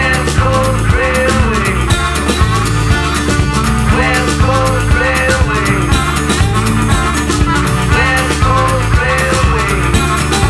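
Recorded band music with a steady beat.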